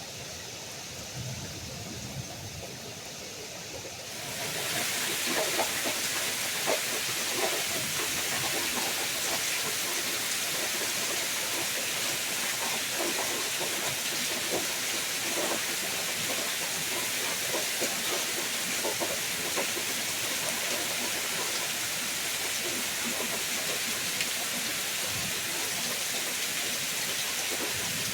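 Heavy rain pouring down, coming on abruptly about four seconds in as a steady loud hiss with many small drop impacts close by.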